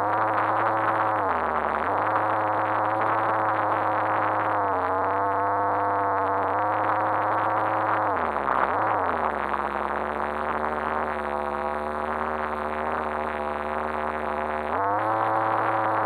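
RC car's motor running as heard from inside a sealed action-cam housing, a muffled, steady pitched whine that drops in pitch about a second and a half in, sinks lower around the middle, and climbs back up near the end as the throttle changes.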